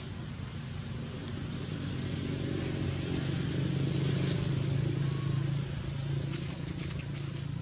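Low, steady hum of a motor vehicle's engine running nearby, growing louder about halfway through and then easing slightly.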